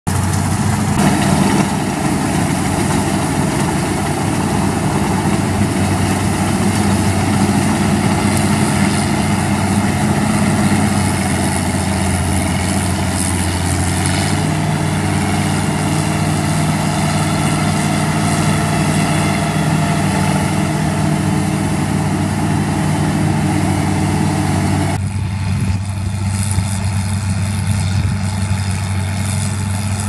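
CLAAS Crop Tiger 30 combine harvester running steadily while cutting and threshing rice, its engine and machinery making a loud, even drone. The sound shifts abruptly twice, about halfway and again near the end.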